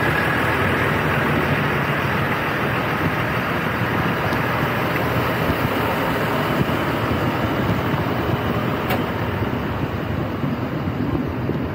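Steady rumble of diesel tractor and truck engines idling close by.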